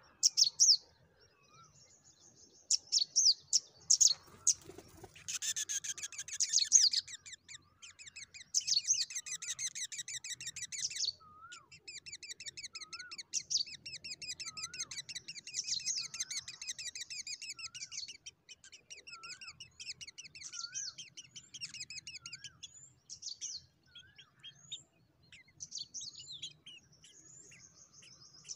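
Nestlings begging at the nest, a dense chorus of rapid high-pitched calls that builds over the first several seconds and thins out in the last few. Underneath, a short, lower, up-and-down note repeats about once a second through the middle.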